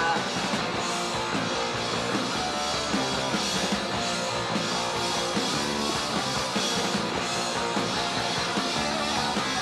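Punk rock band playing live in an instrumental stretch between sung lines: electric guitar, bass and drums keeping a steady beat, with no singing.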